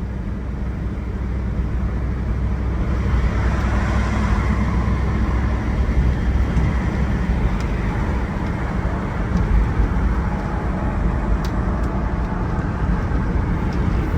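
Ford V8 engine running smoothly under a steady low rumble while the vehicle is driven, with road noise, growing a little louder about three seconds in.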